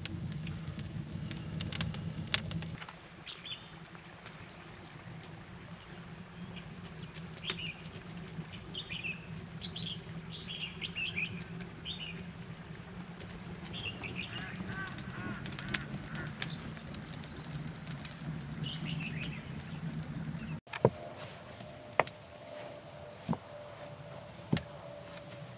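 Small birds chirping in short repeated calls over a low steady hum. Near the start a wood fire gives a few sharp crackles. Near the end there are several sharp knocks about a second apart as rounded stones are set down on the ground.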